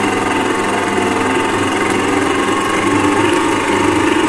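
Stand mixer running steadily at speed, its wire whisk beating a runny cake batter in a stainless-steel bowl, with a steady motor hum and whine.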